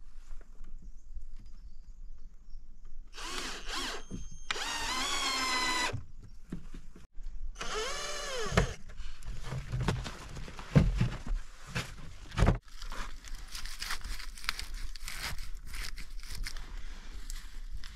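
Cordless drill whirring in two bursts a few seconds apart, the second rising and falling in pitch. After them come a few sharp knocks and scraping.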